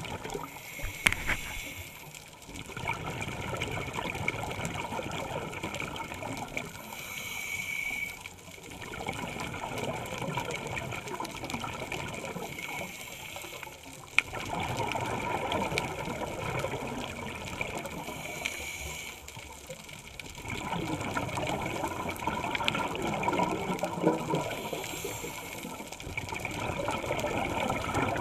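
Scuba diver breathing through a regulator underwater: a short hiss on each inhale and a longer rush of exhaled bubbles, repeating about every six seconds.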